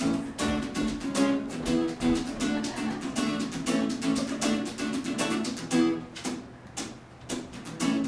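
Acoustic guitar strummed live, a steady run of chord strokes with a brief lull about six seconds in before the strumming picks up again.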